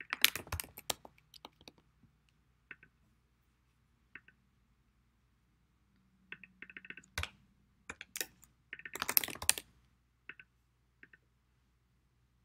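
Typing on a computer keyboard in quick bursts of keystrokes with pauses between, and a few single clicks.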